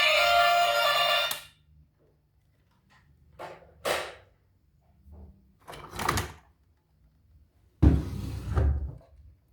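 Background music cuts off about a second and a half in. Then come two short swishing handling sounds and, near the end, a louder rustle with a thump.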